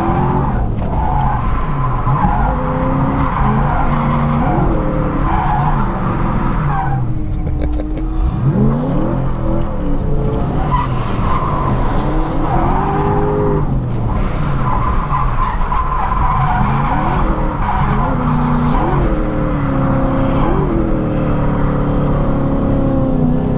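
Lexus IS200's swapped Toyota 1UZ V8 revving up and falling back over and over while drifting, with tyres squealing. The engine note briefly drops away about a third of the way in and again just past halfway.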